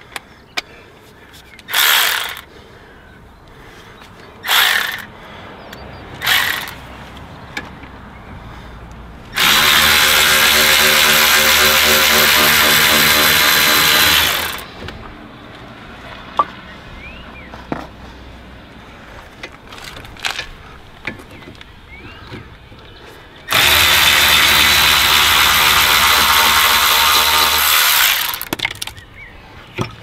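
Cordless ratchet motor spinning out the brake caliper's slide pin bolts: three short bursts, then two steady runs of about five seconds each, with small clicks of handling between them.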